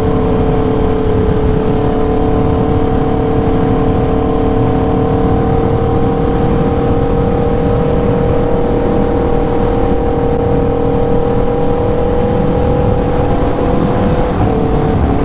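Aprilia Tuono V4 1100 Factory's 1077 cc V4 engine running at a steady cruise, its note climbing slowly, with wind rush at speed. The note breaks briefly near the end, then carries on slightly lower.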